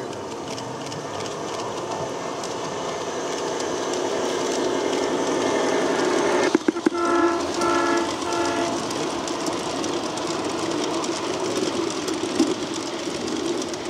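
A G-scale model diesel locomotive and its freight cars roll past over garden-railway track, with a steady clatter of wheels that grows louder as the train nears. About a third of the way in, the locomotive's sound system gives three short horn blasts.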